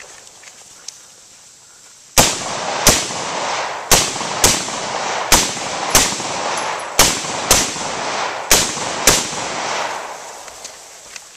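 Ten rifle shots fired as five quick pairs, the two shots of each pair about half a second apart and about a second between pairs. Each shot leaves a short echo.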